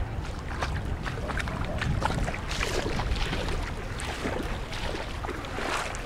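Shallow seawater lapping and splashing among flat reef rocks, with many small irregular splashes and gurgles over a steady low rumble.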